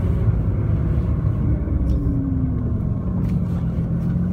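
Nissan GT-R R35's twin-turbo V6 running at low revs, heard from inside the cabin, with the engine note falling briefly about halfway through.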